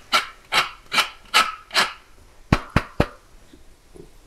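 Pepper mill grinding black pepper: about five crunching twists at roughly two and a half a second, stopping about two seconds in. Then three quick, sharp knocks.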